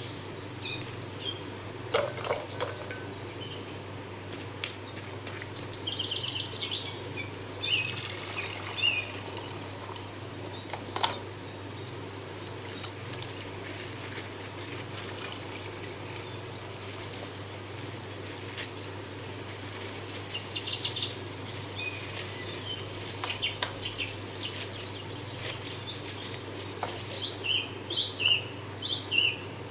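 Birds chirping and calling over a steady low hum, with a few sharp clicks, the loudest about two and eleven seconds in.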